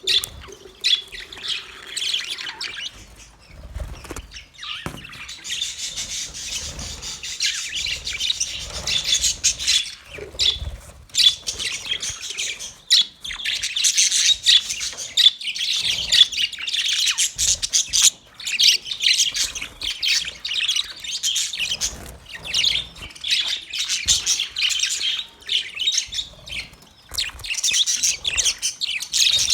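Male budgerigars warbling and chirping in a continuous, rapid chatter, with occasional sharper squawks.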